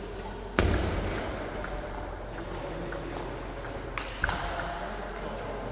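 A loud thud about half a second in, then two lighter sharp taps around four seconds in, echoing in a large sports hall between table tennis rallies.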